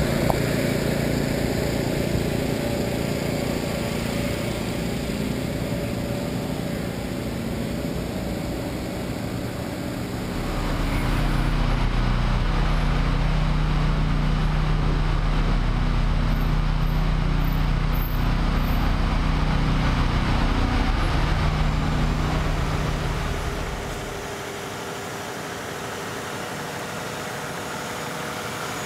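Heavy diesel truck engines running steadily, a continuous low drone. About ten seconds in it changes sharply to a louder, deeper drone, and about twenty-four seconds in it drops quieter.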